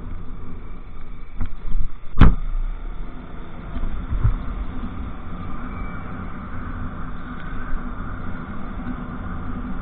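Motorcycle riding noise on a mounted camera: a steady low rumble of wind and engine, with a single sharp knock about two seconds in.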